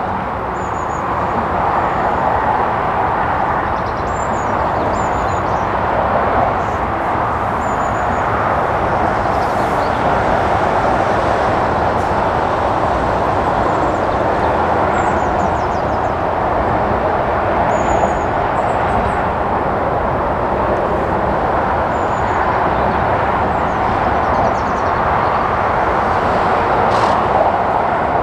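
Steady roar of road traffic crossing the bridge overhead, with short high bird chirps now and then.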